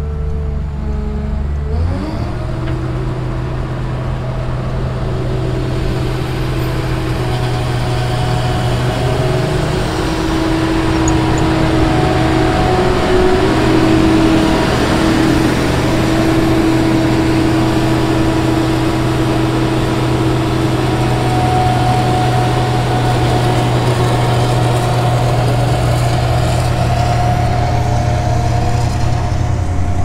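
Diesel engines running: a combine harvester drives up and past close by, over the steady hum of a pickup truck's engine. An engine revs up about two seconds in, and the sound grows louder toward the middle, then holds steady.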